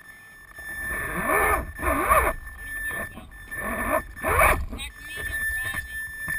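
Men's voices talking indistinctly, in short phrases with pauses, over a faint steady high whine.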